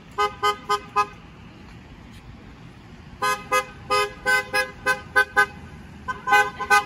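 Car horn honking in short, quick toots: a burst of four beeps at the start, then a longer run of about eight beeps from about three seconds in, and more near the end.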